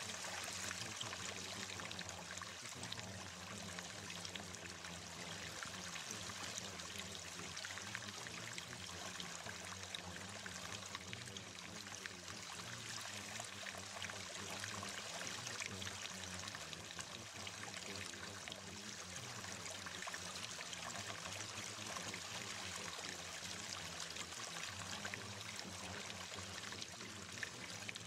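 Steady running water, like a trickling stream, with a faint low steady hum beneath it.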